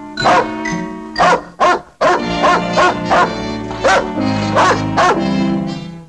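Orchestral cartoon score with a cartoon dog barking over it in a string of short, quick barks.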